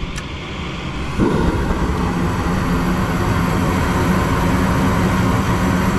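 Gas furnace burners lighting about a second in, with a sudden jump in sound, then burning steadily over the running draft-inducer fan: gas is reaching the burners again now that the shut-off gas valve is open.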